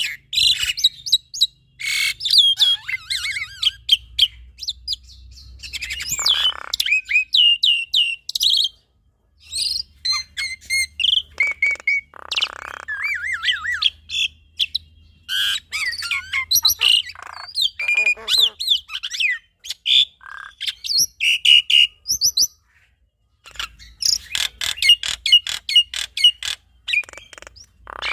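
A male black-winged starling (jalak putih) and a female Javan myna (jalak kebo) singing in duet: a rapid, continuous jumble of chirps and whistled notes mixed with a few harsh rasping calls. The song breaks off briefly about nine and twenty-three seconds in.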